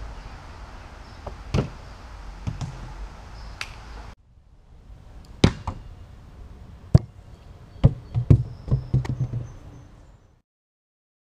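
A ball thudding into a plastic trash bin and knocking around inside it: a series of sharp knocks, ending in a quick rattling cluster, over light outdoor background noise.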